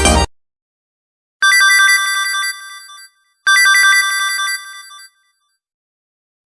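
A short LG KG280 mobile phone ringtone: a bright, chiming melodic phrase played twice, each time about a second and a half long and fading away, with a short gap between. Right at the start the previous ringtone cuts off.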